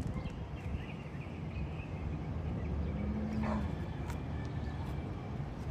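Outdoor neighbourhood ambience: a steady low rumble of traffic with faint bird chirps now and then, and a short low hum a little past three seconds in.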